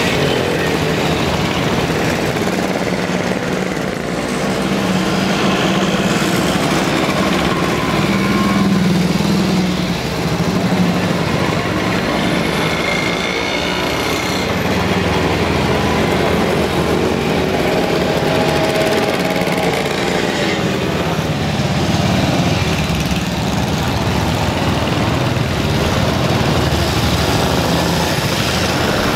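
Procession of vintage motorcycles and scooters riding past slowly, many small engines running together. Individual engine pitches rise and fall as machines pass.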